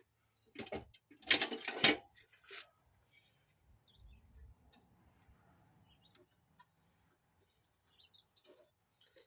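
A few short knocks and clatters, loudest between about one and two seconds in, then faint scattered ticks.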